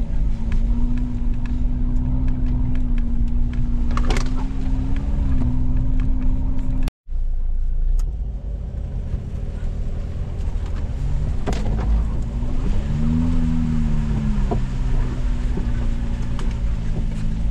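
Off-road vehicle's engine running under a low rumble, its pitch mostly steady with small rises and dips. The sound cuts out completely for a moment about seven seconds in, then the engine comes back a little quieter and its pitch rises and falls briefly in the middle of the second half.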